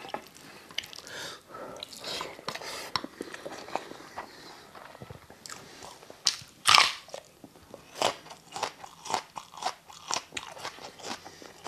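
Close-miked chewing of a mouthful of food, with one loud crunchy bite into a raw onion a little past the middle, then more crunching as the onion is chewed.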